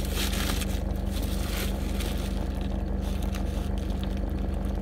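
Steady low hum of a car idling, heard from inside the cabin, with a paper sandwich wrapper rustling through the first second or two.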